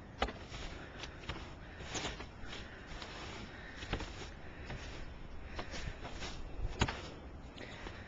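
A snow brush sweeping and scuffing snow off a car, with a few sharp knocks scattered through.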